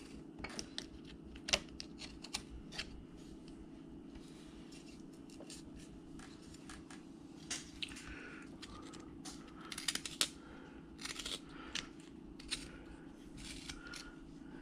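Carving knife blade shaving a small piece of wood, with short irregular cutting clicks and brief scraping strokes as the blade slices with the grain.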